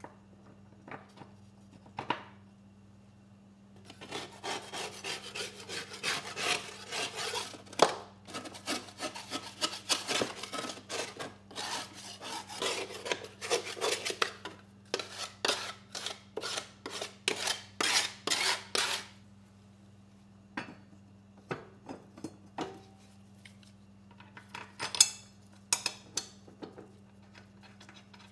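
Caked grass clippings and dirt being scraped off the underside of a lawn mower deck: a long run of quick scraping strokes, about two or three a second, that stops about two-thirds of the way in. Near the end come a few sharp metal clinks as the blade is set back on its hub.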